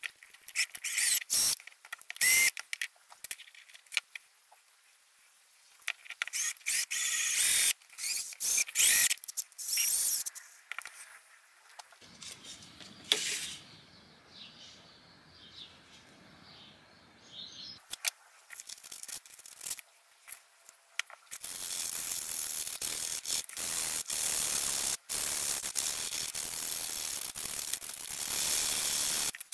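Stanley knife blade shaving and scraping a small wooden lure body: runs of short, sharp cuts, a quieter stretch with one sharp click about halfway through, then several seconds of steady, continuous scraping near the end.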